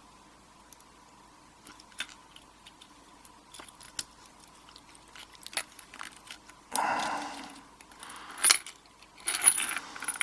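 Small metal lock parts (pin-tumbler pins and core pieces) clicking and clattering as they are handled, with a few light ticks at first and louder rattling near the end.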